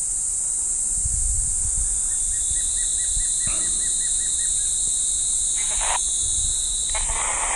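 Steady high-pitched chorus of insects such as crickets, with a run of about ten quick repeated chirps partway through. Two short bursts of hiss come near the end, over a low rumble.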